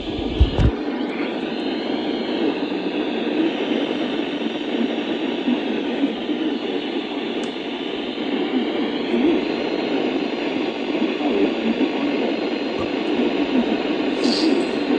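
Radio receiver static: a steady hiss with faint whistling tones that drift up and down.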